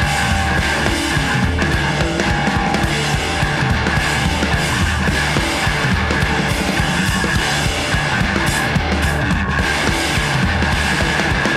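Noise pop band recording playing loud and dense, a thick wall of sound over bass and drums with no break.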